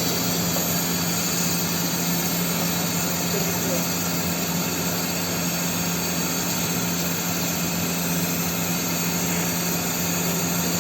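Welding spatter test machine running during a test: a steady hum with an even hiss over it, holding level throughout.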